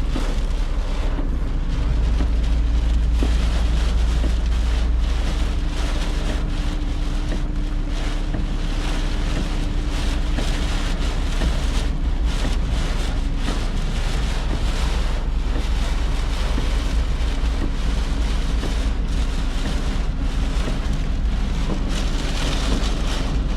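Steady rain with wind: a constant hiss over a strong low rumble of wind.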